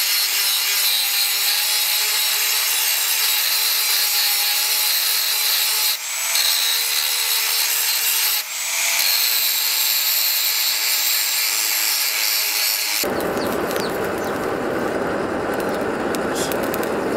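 Angle grinder's abrasive disc grinding a steel knife blank, a steady high-pitched grinding that briefly drops twice as the disc is lifted off, around six and eight and a half seconds in. About thirteen seconds in it gives way to a charcoal forge fire, a steady rush with scattered crackling pops.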